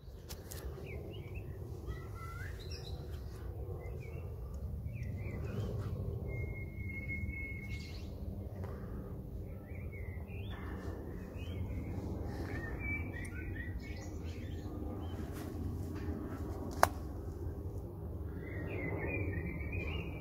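Small birds chirping and trilling on and off over a steady low rumble, with one sharp click late on.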